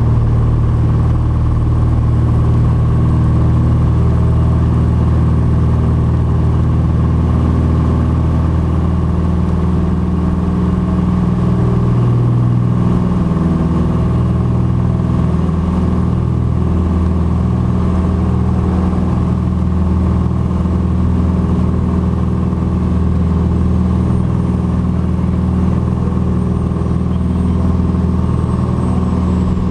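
Cessna 182RG Skylane's six-cylinder piston engine and propeller running at takeoff power just after the takeoff roll, a loud steady drone.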